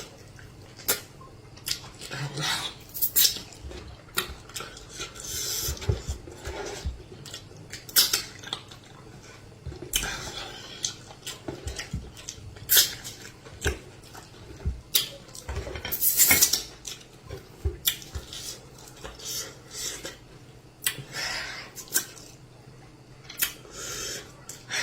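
Dishes and cutlery clinking and scraping irregularly as someone eats, many short sharp clicks with small pauses between.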